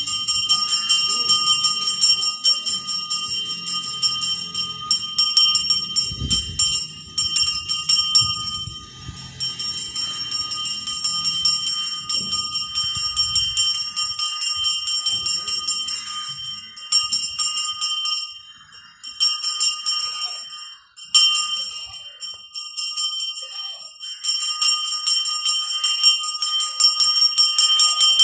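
A metal bell rung rapidly and without pause, a high steady ringing made of fast repeated strikes. It breaks off briefly twice about two-thirds of the way through. A low rumble runs underneath during the first third.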